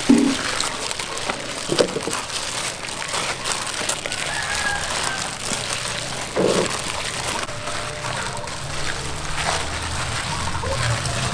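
Hands kneading and squeezing crumbly white flour dough in a steel bowl, one hand in a plastic bag used as a glove: the plastic crinkles and the dough rubs and squishes against the metal, with scattered small clicks.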